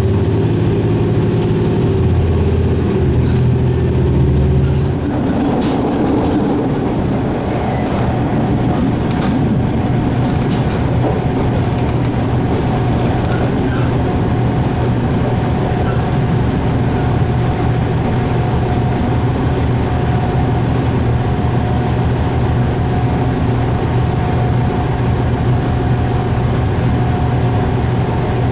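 Diesel railcar on the move. For about the first five seconds the engine note steps up and down in pitch; after that it settles into a steady running sound of engine and wheels on rail, with a low hum and a steady whine.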